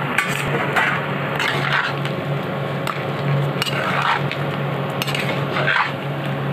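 Flat metal spatula stirring and scraping chunks of fried vegetables through a wet, milky sauce in a non-stick pan: irregular scrapes and squelching strokes, over a steady low hum.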